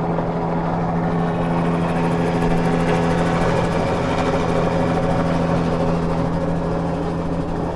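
Helicopter flying low overhead, a steady rotor and engine drone that swells just as the sound starts and eases slightly near the end, heard from inside a car.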